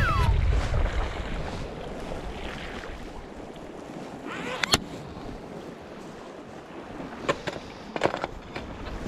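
Sea waves washing against a rocky shore, with wind rumbling on the microphone, strongest in the first second. A few sharp clicks or knocks sound over it, one about halfway through and a small cluster near the end.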